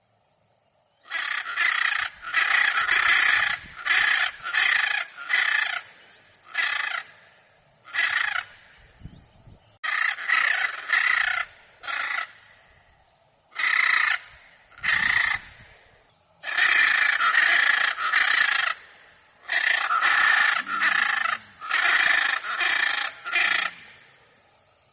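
Macaw screeching: a long run of loud, harsh squawks in bouts with short pauses between, starting about a second in.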